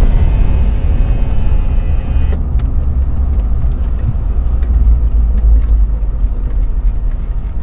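Car being driven on the road, heard from inside the cabin: a steady low rumble of engine and tyre noise. The higher hiss drops away abruptly about two seconds in.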